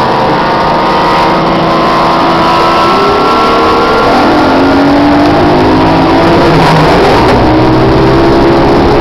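Motorboat engine running at speed, its pitch rising a few times, over a steady rush of noise.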